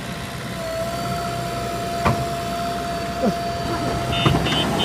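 Heavy construction machinery engine running steadily with a steady whine over it and a sharp click about two seconds in; near the end a rapid high-pitched beeping starts.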